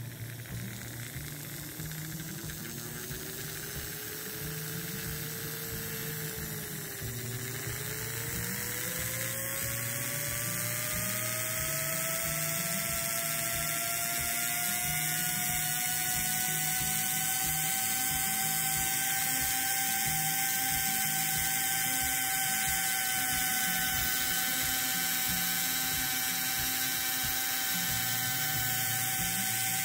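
Lionel Pullmor AC motor with a newly rewound field coil running on test. Its whine rises in pitch as it speeds up, dips briefly about seven seconds in, then climbs again and holds steady at speed for the second half, showing that the rewound field works.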